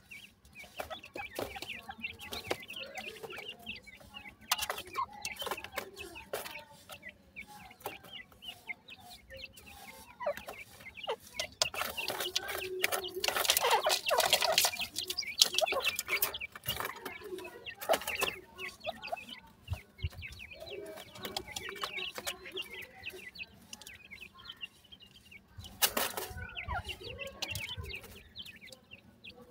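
Grey francolin chicks giving soft clucking and chirping calls, with a louder, busier stretch of calling in the middle.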